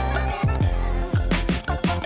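Background hip-hop style music with a steady beat and deep, falling bass notes.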